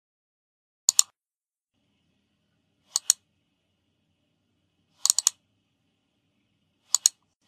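Sharp clicks in small groups about every two seconds: a pair, a pair, a quick run of four, then a pair, with silence between.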